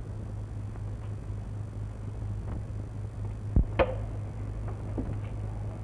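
Steady mains hum and hiss of an old film soundtrack, with one sharp knock about three and a half seconds in, followed by a brief falling tone.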